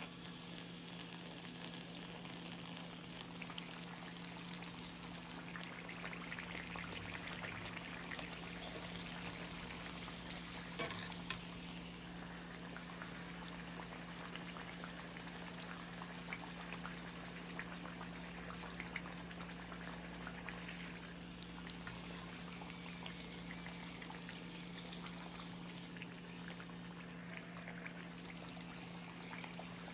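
Food sizzling and simmering in a frying pan, a steady hiss with a few light clicks of a utensil against the pan about eleven seconds in.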